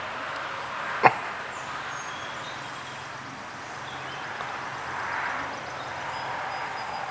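Backyard outdoor ambience with a few faint, short, high bird chirps in the distance, and one sharp click about a second in.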